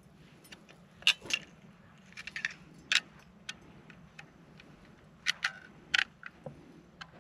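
An AR-15 rifle and its magazine being handled: about a dozen sharp metallic clicks and rattles at irregular spacing. The rifle is malfunctioning, with the magazine taken to be the problem.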